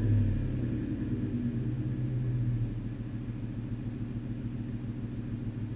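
Exhaust of a 2005 Ford F-150's 5.4-litre three-valve V8 through a Flowmaster 40 Series muffler, running within a minute of a cold start. The engine eases down from a blip of the throttle and settles into a steady idle about three seconds in.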